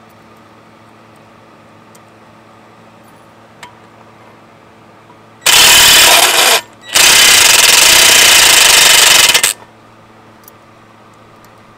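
A Ryobi 18V impact driver hammers a socket onto a boat propeller nut. It gives one burst of about a second, a brief pause, then a longer run of about two and a half seconds. It is on a low speed setting, which the owner then finds too weak to snug the nut.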